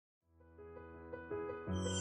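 Instrumental intro music fading in: held notes over a low bass line, growing louder, with a bright high shimmer joining near the end.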